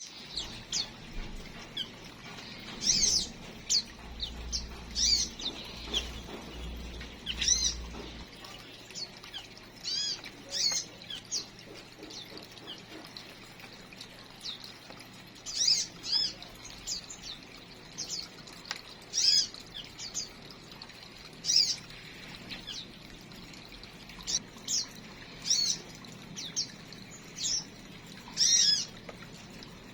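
Small cage birds in an aviary chirping: short, high chirps come singly or in quick pairs every second or two.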